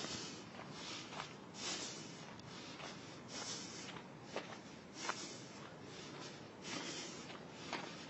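Footsteps of a person walking, a soft scuff about once a second, heard close to the microphone over faint outdoor hiss.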